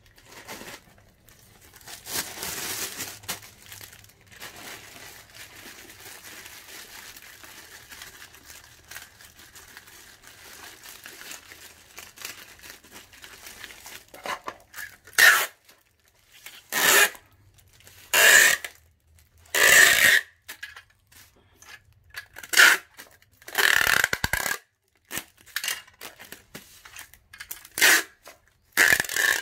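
Adhesive packing tape pulled off the roll in a series of short, loud strips in the second half, after quieter rustling of the packing materials.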